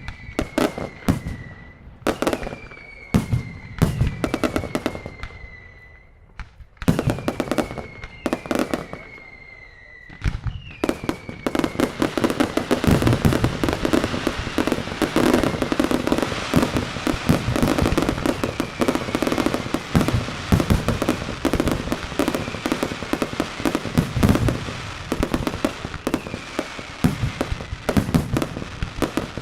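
Mascletà firecracker barrage: loud bangs with short falling whistles every second or two, then from about eleven seconds in a dense, unbroken run of rapid bangs and crackles.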